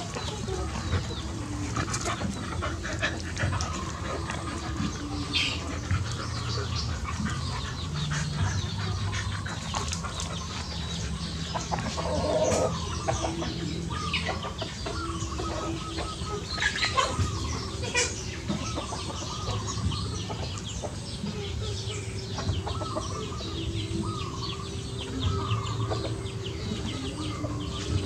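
Two dogs play-fighting, wrestling and mouthing at each other's necks, with low drawn-out growls and scuffling.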